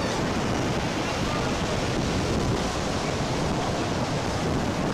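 Sea surf washing steadily, with wind rushing over the microphone.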